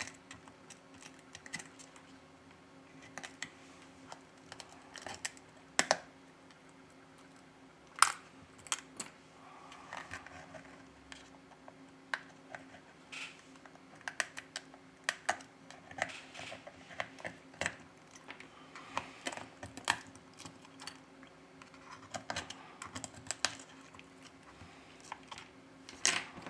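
Metal opening tool prying and scraping under the broken back glass of an iPhone XS Max: irregular small clicks, taps and scrapes, a few sharper clicks among them, over a faint steady hum.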